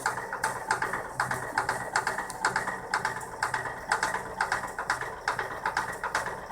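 Failing circulation pump of a 2007 Vaillant atmoTEC pro 240/3-3 gas boiler knocking: rapid, uneven clicks several times a second over a low, pulsing hum.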